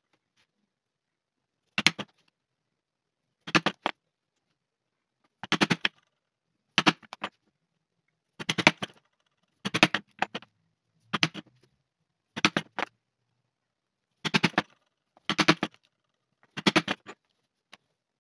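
White-headed mallet striking a steel stitching chisel, driving its prongs through crazy horse leather to punch stitching holes. Short clusters of two to four sharp knocks come about every one to two seconds, with silence between as the chisel is moved along the edge.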